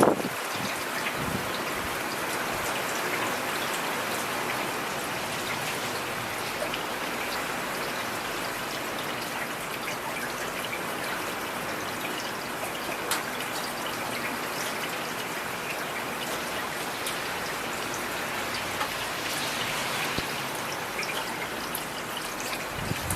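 Steady rainfall: an even hiss of rain with scattered individual drops ticking through it.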